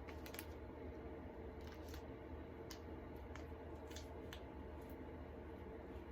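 A scattering of faint small clicks and taps from hands working icing and candies onto a gingerbread house, over a steady low room hum.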